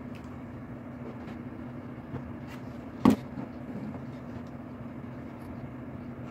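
Steady low hum with faint ticks of hands handling loose wiring, and one sharp click about three seconds in.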